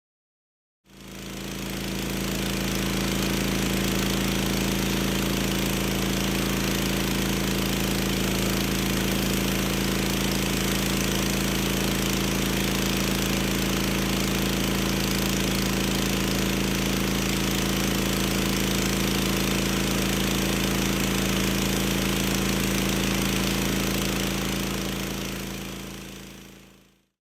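Pressure washer running steadily: a constant machine hum with a spraying hiss over it. It fades in about a second in and fades out near the end.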